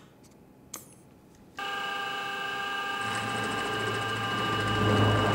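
Two light clicks, then about a second and a half in the spindle of a PM-728VT benchtop milling machine starts and runs with a steady whine of several tones. A quarter-inch end mill then plunges into the metal block, the sound growing louder and rougher near the end.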